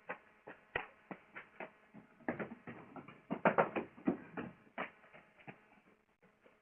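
Irregular quick footsteps and a cluster of rapid knocks on a door about three and a half seconds in, heard through a doorbell camera's microphone.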